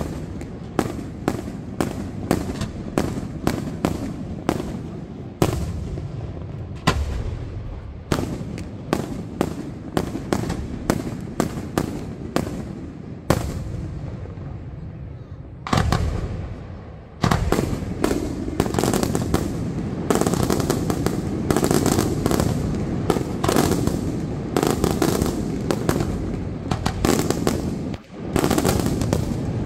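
Aerial firework shells bursting overhead in a rapid series of sharp bangs over a low rumble. From about seventeen seconds in, the bursts come thicker and louder in a near-continuous barrage.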